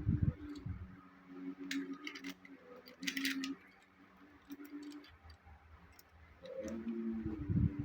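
Light clicks, crinkles and handling bumps of a small toy package being handled, with a steady low tone underneath.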